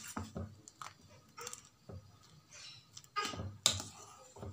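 Metal spoon stirring milk in a steel pan, with scattered light clinks and scrapes against the pan and a sharper clink about three-quarters of the way in.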